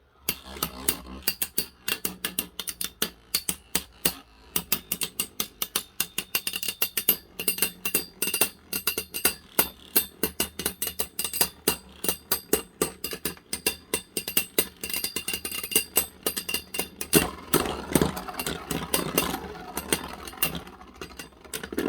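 Two Metal Fusion Beyblades, Dark Bull and Earth Eagle, spinning and clashing in a stadium: rapid metal clicks and knocks several times a second over a faint whir, denser around three quarters of the way through and thinning out near the end.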